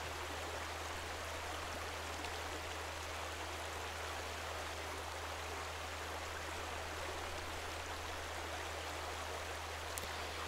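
Steady rushing of running water in the background, even and unchanging, with a low steady hum underneath.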